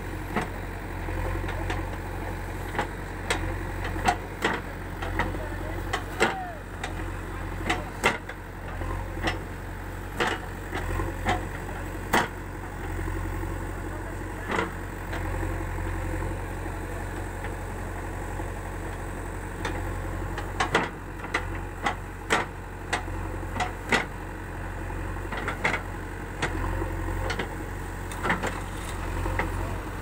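JCB 3DX backhoe loader's diesel engine running with a steady low hum while the backhoe arm digs, with frequent sharp knocks and clanks at irregular intervals.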